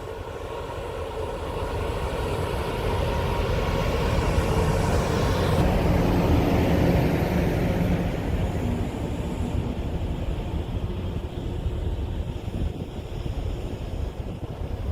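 Steady rumble of a moving vehicle with wind noise, swelling to its loudest about six to seven seconds in and then easing off.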